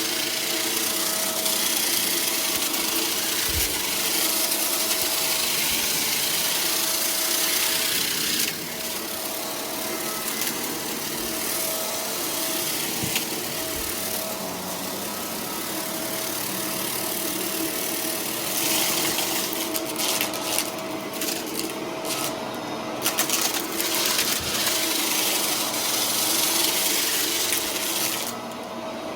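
Shark vacuum cleaner running steadily, a held motor tone under a rushing air hiss. The hiss drops about a third of the way in and dips briefly a few times near the end as the suction changes.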